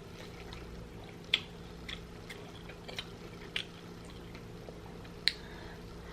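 A person chewing and smacking their lips on a saucy turkey leg, with wet mouth clicks at irregular intervals, the two loudest about a second in and near the end. A faint steady hum lies underneath.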